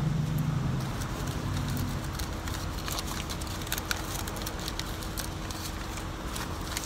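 Scattered light clicks and taps, thickest in the middle seconds, over the steady low hum of an idling car heard from inside the cabin.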